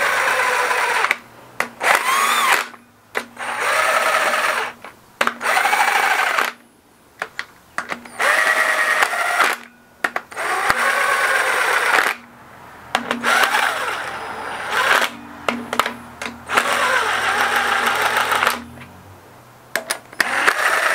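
A cordless power driver runs camshaft bearing cap bolts down onto an engine's cylinder head in about eight short bursts of a second or two each. Its motor whine bends up and down in pitch within each burst. The bolts are being snugged lightly, not fully torqued.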